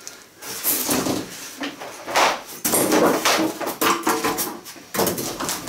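Cardboard TV box and its packing being handled: a run of irregular rustles, scrapes and knocks of cardboard and foam.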